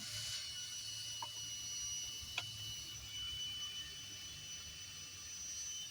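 Electric drill spinning up and running steadily with a high whine as it bores into very hard timber, stopping just before the end. A single sharp tick about two and a half seconds in.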